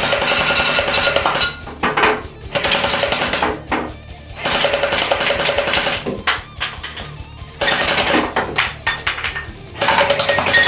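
Battery-powered Mini M4 gel blaster firing water-gel beads in full-auto bursts, its motor and gearbox whirring with rapid cycling, about six bursts of one to two seconds each with short pauses between, as the beads knock over metal aerosol cans.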